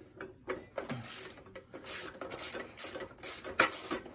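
Small hand ratchet clicking in irregular runs as a screw is backed out of the sheet-metal fan shroud on an air-cooled VW Beetle engine, with a few metallic rattles; the sharpest click comes near the end.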